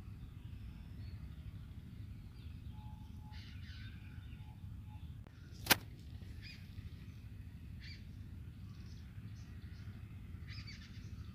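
Faint background ambience: a steady low hum with scattered short bird chirps, and one sharp click a little past halfway.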